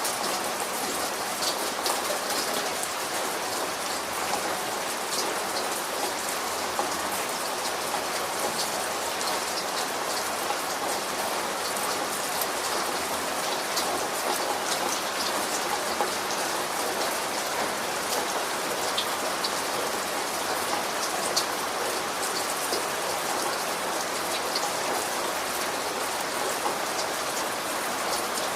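Steady rain falling, a continuous hiss with many small droplet ticks landing on a surface.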